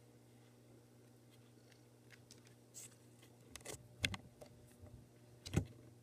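Several light clicks and knocks over a steady low hum, starting about halfway through, with the sharpest about four and five and a half seconds in.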